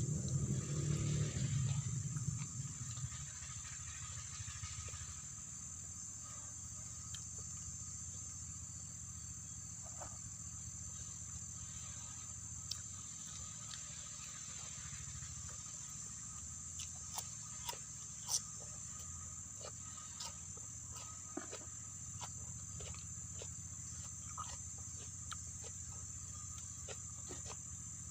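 Steady high-pitched drone of insects, with a low steady hum beneath and scattered small clicks. A louder low rumble fades out in the first few seconds.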